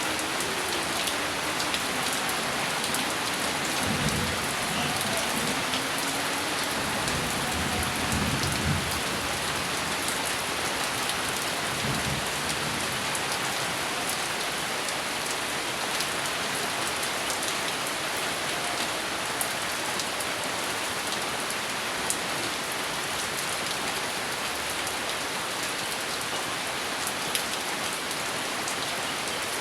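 Steady rain falling on a surface, with a low rumble of thunder from about four to nine seconds in and briefly again a few seconds later.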